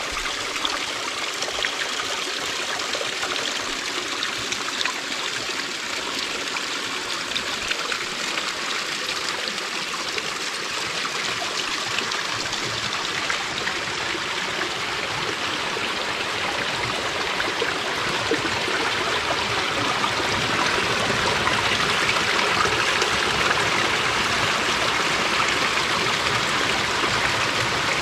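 Shallow spring-fed brook trickling and splashing over mossy rocks, a steady rush of running water that grows a little louder about two-thirds of the way through.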